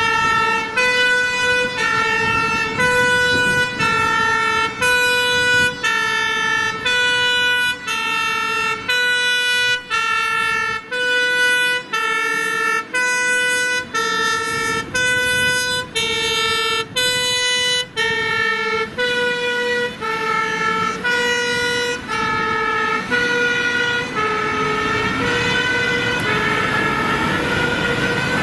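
Two-tone siren of a Belgian fire brigade aerial ladder truck on an emergency run, switching steadily between a high and a low note about once a second. The notes sit slightly lower in pitch over the last few seconds.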